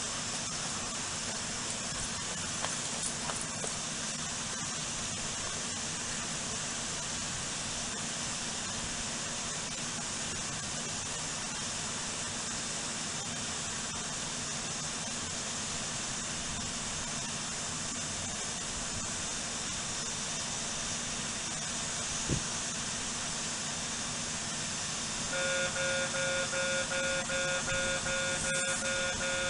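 A steady hiss, then about 25 seconds in a level-crossing warning bell starts up: an electronic ding repeated rapidly at an even rate.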